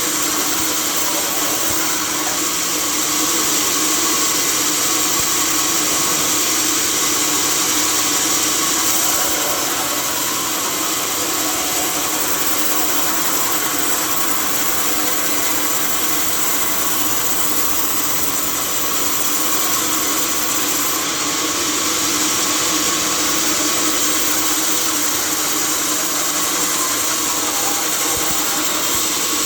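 Sawmill log saw running steadily with an unbroken hissing whine over a low hum.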